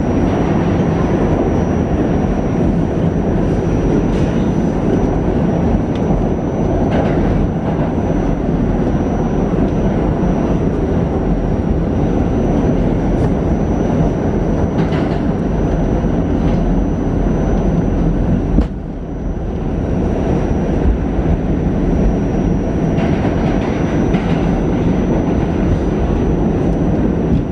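R46 subway car of the A train running through the tunnel, heard from inside the car. A steady loud rumble of wheels and motors, with a thin high whine over it, a few faint clicks, and a brief drop in level about two-thirds of the way through.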